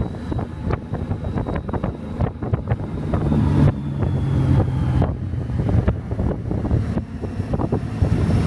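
Motorcycle engine running steadily while riding, with wind buffeting the microphone in irregular gusts.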